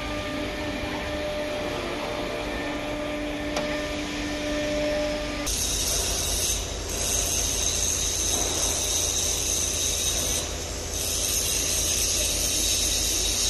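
CNC router machinery running: a steady machine hum with several held tones, then, after about five seconds, a louder high hissing machine noise that dips briefly twice.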